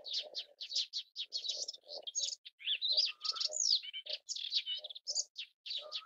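Melodious warbler singing a fast, continuous jumble of varied high chirps, trills and short whistled slurs.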